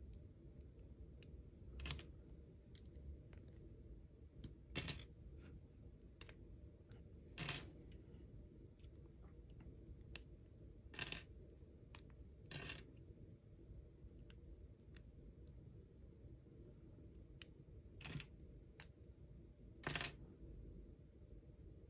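Small plastic Lego bricks being pulled apart by hand, giving irregular sharp clicks and clacks as pieces unsnap and are handled among loose bricks, about seven louder ones among many faint ticks.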